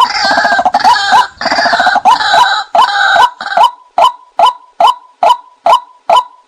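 White-breasted waterhen calls played as a hunter's decoy lure: a rhythmic series of sharp "kwak" notes. The notes overlap densely for the first few seconds, then settle into a single regular series of about two a second.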